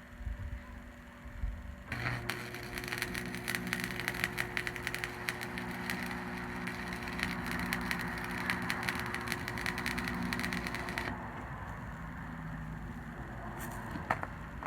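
Hobart AC 250 buzz-box stick welder burning a 7018 AC rod: the arc crackles and sizzles steadily over a low electrical hum for about nine seconds, then breaks off abruptly. A couple of sharp clicks come near the end.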